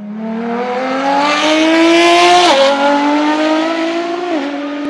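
A car engine accelerating hard, its pitch climbing steadily and dropping sharply at two upshifts, about two and a half seconds in and again near the end.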